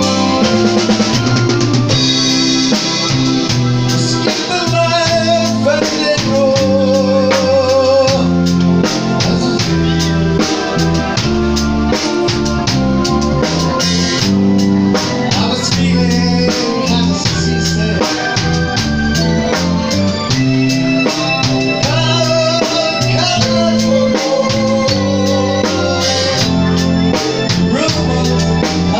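Live band music: an organ sound played on a Korg 01/W FD keyboard, with electric guitar and a drum kit keeping a steady beat.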